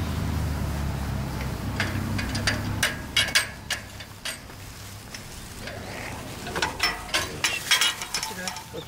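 Metal clicking and rattling of a wire-mesh gate and its latch being worked, in two bunches of sharp clicks a few seconds apart. A low rumble underlies the first three seconds and then fades.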